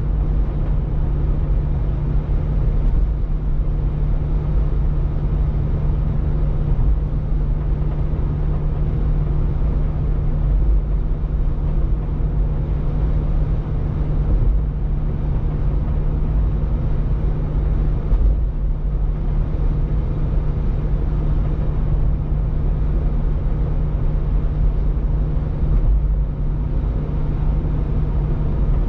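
Steady road noise inside a car's cabin while driving on a highway: an even rush of tyres on pavement over a low, constant hum from the engine and drivetrain.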